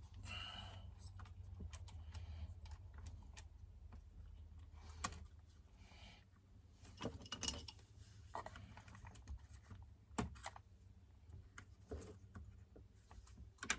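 Faint, scattered light clicks and taps of small metal parts and hand tools being handled while a chainsaw is taken apart, with a steady low hum underneath.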